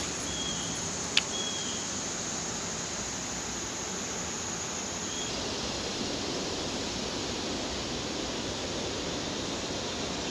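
Outdoor creek ambience: a steady high insect drone over an even hiss, the insect buzz stopping about halfway through. A single sharp click about a second in and a couple of brief high chirps near the start.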